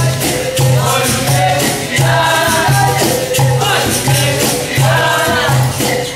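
Capoeira roda music: berimbaus with caxixi shakers and a pandeiro keep a steady rhythm, with voices singing over them.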